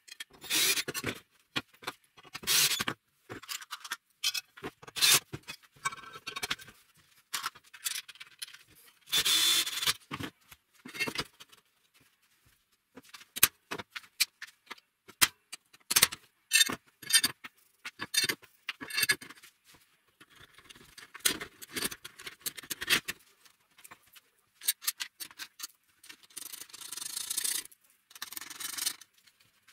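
Steel parts and fasteners being handled and fitted at a wooden bench: irregular clinks, taps and scraping of metal plates, bolts and nuts. A cordless drill runs in a few short bursts, the longest lasting about a second.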